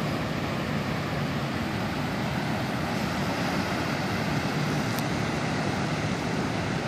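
Steady rush of surf breaking along the beach, with one faint click about five seconds in.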